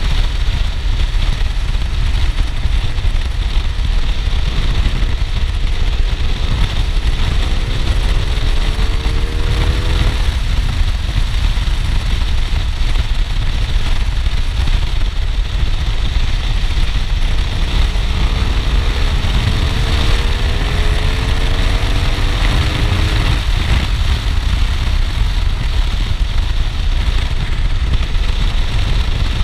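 BMW R1200R boxer twin through an Akrapovic titanium exhaust, heard while riding at speed. Its pitch rises twice under acceleration and drops away each time, about ten seconds in and again near twenty-three seconds. A steady low wind rumble on the microphone is loudest throughout.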